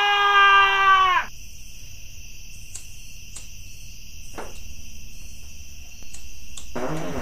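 A man screaming in a high falsetto, one long shriek held on a steady pitch that cuts off about a second in. After it comes a quieter steady high background hum with a few faint clicks.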